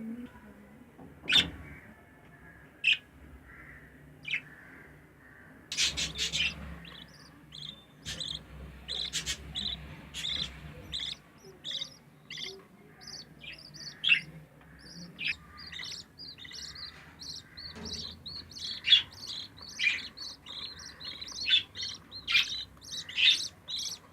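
Budgerigars chirping with short, high calls: only a few at first, then a quick, busy run of chirps from about eight seconds in.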